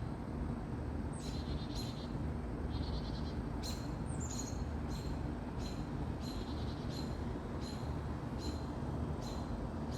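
Bird alarm calls, plausibly set off by a hawk at the nest: short, sharp, high calls about every half second to a second, some sliding down in pitch, with wavering bleat-like notes in between. A steady low hum runs underneath.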